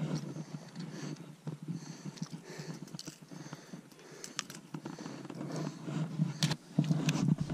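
Wind buffeting the microphone as a rough low rumble, with a few sharp clicks and faint high chirps over it.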